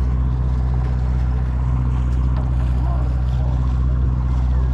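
Boat engine running steadily, a low, even hum that holds without change.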